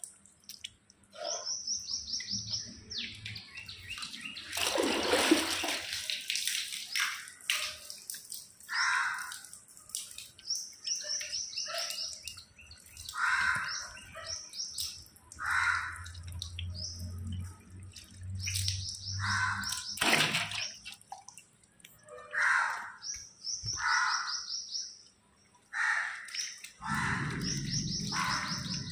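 Birds calling over and over: a high, rapid trill of chirps every few seconds, with shorter, lower calls in between. A loud rush of noise breaks in about five seconds in.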